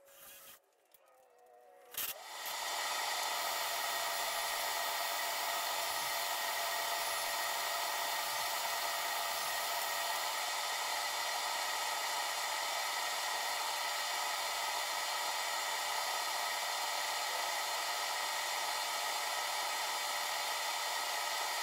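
SawStop table saw switched on about two seconds in with a click, its motor and blade spinning up within half a second and then running at a steady pitch; the sound cuts off abruptly near the end.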